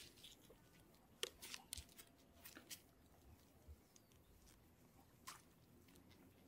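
Near silence, with a few faint small clicks and rustles from gloved hands handling a fishing hook and line: a cluster between about one and three seconds in, and one more about five seconds in.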